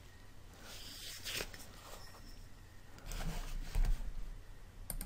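Faint rustling and scraping handling noises in short bursts, about a second in and again around three to four seconds in.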